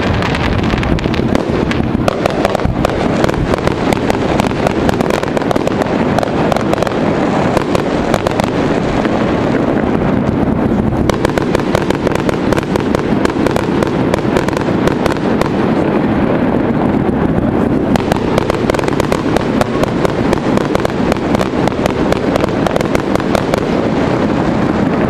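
Aerial fireworks display: shells bursting in a dense, unbroken barrage of bangs and crackling.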